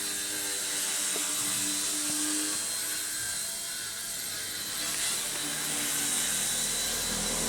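Small four-channel electric RC helicopter hovering: a steady electric motor whine with rotor hiss, its tones shifting slightly about five seconds in.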